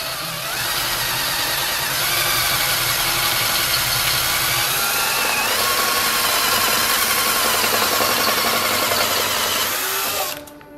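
Cordless drill boring through the chrome sheet-metal shell of a motorcycle exhaust silencer, the motor running steadily under load as the bit cuts into the metal. The sound stops abruptly near the end.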